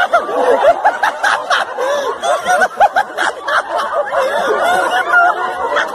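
A crowd of onlookers laughing and calling out together, many voices overlapping.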